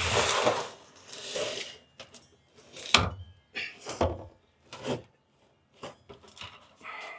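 Handling noise from parts being fitted into place: a rustle and scrape in the first second or so, then a string of separate hard knocks and clunks.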